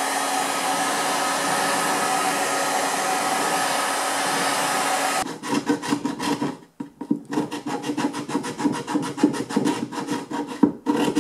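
Electric heat gun blowing steadily with a faint hum, softening old glazing putty; it cuts off abruptly about five seconds in. Then a steel chisel scrapes and picks at the softened putty in the wooden window rebate, in quick, repeated strokes.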